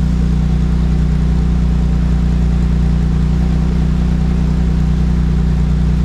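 Nissan 300ZX (Z32) VG30DE V6 engine idling steadily.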